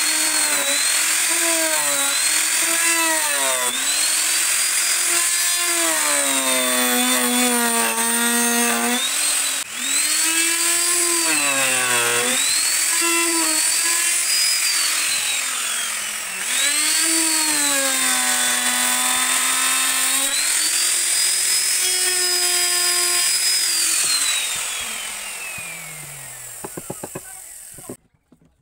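Electric router cutting wood, its motor whine dipping in pitch each time the bit bites under load and rising again as it frees up. Near the end it is switched off and winds down to a stop.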